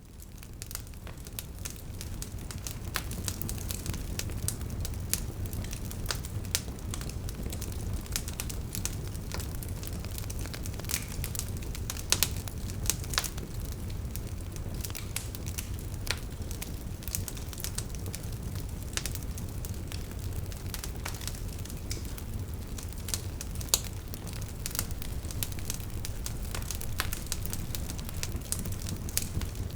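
Wood fire burning in a fireplace: a steady low rumble of flames with irregular sharp crackles and pops from the logs, fading in over the first couple of seconds.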